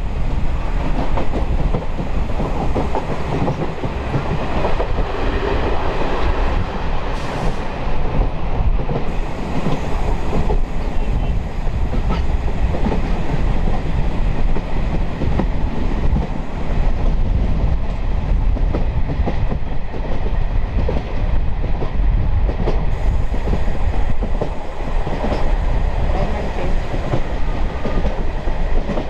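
A DEMU train running at speed, heard on board: steady running rumble with the wheels clattering over the track.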